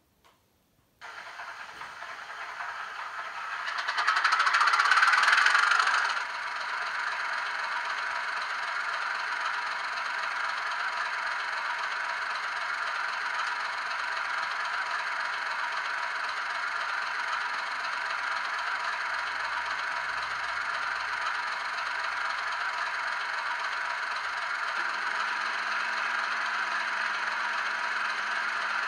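DCC sound decoder in a model Class 31 diesel locomotive playing its engine start-up through the model's small speaker: the engine starts about a second in, rises to its loudest for a couple of seconds, then settles to a steady idle. A lower hum joins in near the end.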